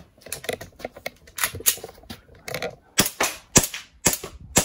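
Green gas airsoft pistol firing a string of sharp shots at an uneven pace, fainter at first and loudest in the second half.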